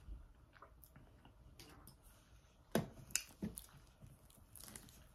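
Faint wet mouth sounds of eating fufu with gooey okra soup: soft chewing and smacking, with a few sharper, louder smacks just past the middle.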